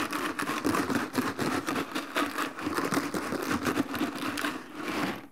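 Ice and salt rattling hard inside a plastic jar shaken fast by hand, a rapid, continuous clattering, dying away near the end. It is the salt-and-ice freezing mix chilling a bag of milk and cream into ice cream.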